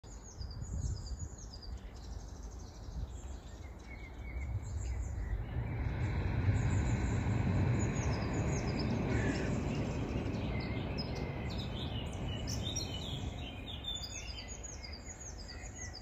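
Small songbirds chirping and singing over a steady rushing background noise that swells a few seconds in.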